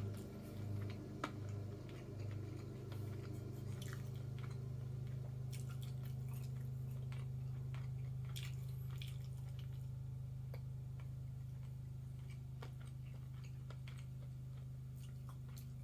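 Soft mouth sounds of eating and drinking: chewing and sips of leftover soup broth from a bowl, with scattered small clicks, over a steady low drone.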